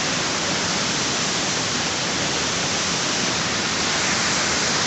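Waterfall pouring: a steady, loud rush of falling water with no change over the whole stretch.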